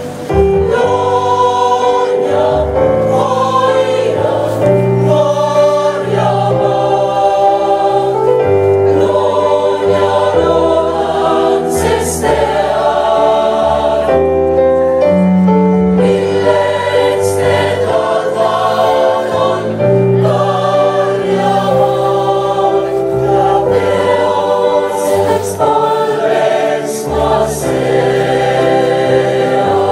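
A mixed choir of young men and women singing in several-part harmony, with long held notes.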